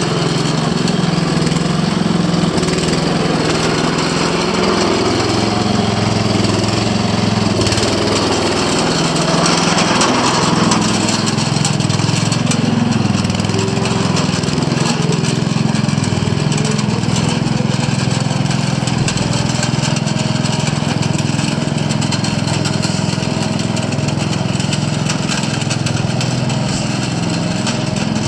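John Deere 110 lawn and garden tractor's single-cylinder engine running as the tractor drives along, its pitch wavering a little, slightly louder about ten seconds in.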